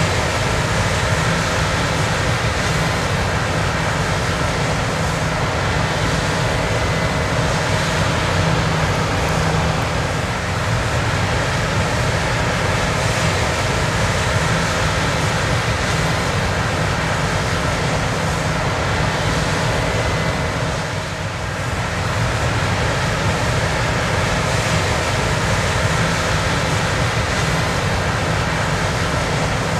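John Deere X9 combine harvester running steadily under harvesting load, a constant machine drone with held tones over a broad rushing noise, dipping briefly about two-thirds of the way through.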